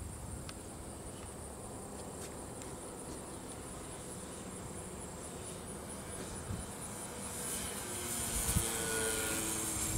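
Electric motor and 12-inch propeller of a radio-controlled Yak 54 model plane whining faintly in the distance, growing louder from about seven seconds in as the plane comes closer. A steady high chirring of insects runs underneath.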